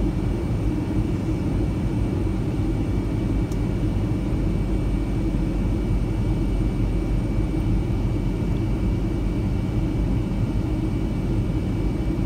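Jet airliner cabin noise on descent: a steady low rumble of engines and rushing air, with a faint steady high whine above it.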